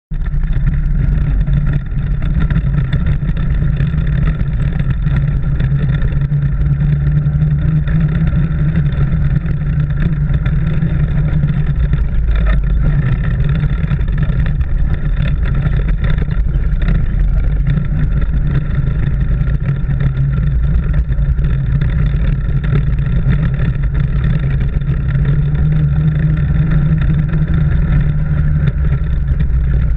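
ATV (quad bike) engine running steadily while riding over a dirt track, without letup.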